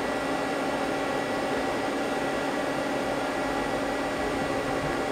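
Steady hum and hiss of a powered-up Mazak CNC lathe standing idle, its spindle not yet started, with a faint steady whine on top.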